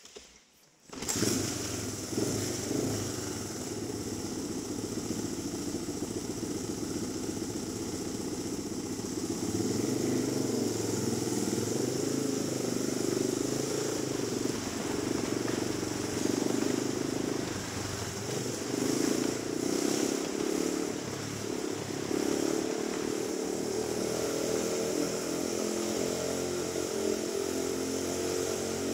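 Motorcycle engine running as the bike rides round the vertical wooden wall of a wall-of-death drum. It comes in suddenly about a second in, then runs on continuously, its level rising and falling a little with the throttle.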